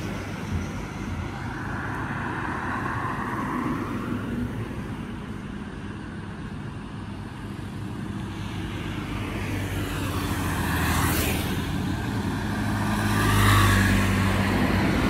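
Road traffic passing, quieter in the middle, with vehicles going by about eleven seconds in and a motor scooter passing close near the end.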